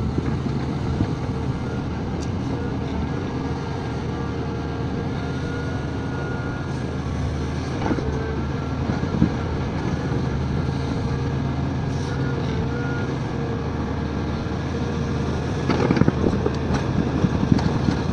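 Heavy excavator's diesel engine running steadily under load, with a few knocks about halfway through and a cluster of clattering knocks near the end as the ripper works rock.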